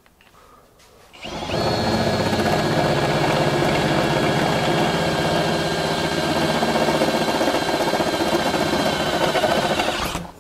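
Cordless drill driving a step drill bit made for thick steel into quarter-inch steel plate: the motor whine and cutting noise start about a second in, run steadily, and stop just before the end.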